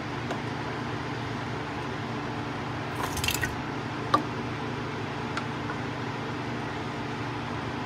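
Pitted cherries in syrup being spooned into a glass mason jar: a brief wet squelch about three seconds in, then a sharp click and a few light ticks, over a steady low hum.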